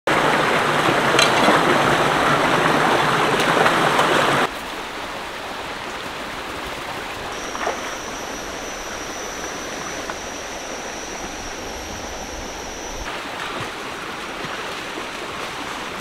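Shallow rocky stream rushing and splashing over stones, loud at first and then dropping suddenly to a quieter steady rush about four and a half seconds in. A thin, steady high-pitched whine sits over the water for several seconds in the middle.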